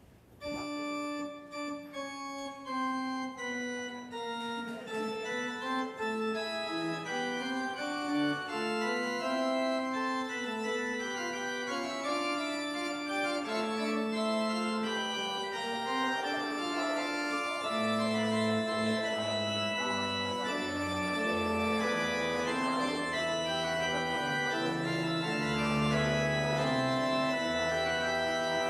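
Church pipe organ playing the postlude after the benediction: sustained chords in the middle and upper range begin about half a second in, and deep pedal bass notes join about two-thirds of the way through.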